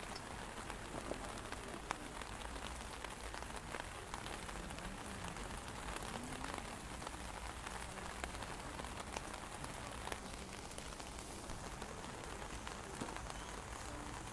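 Steady rain falling on open umbrellas, with many individual drops ticking sharply on the canopies.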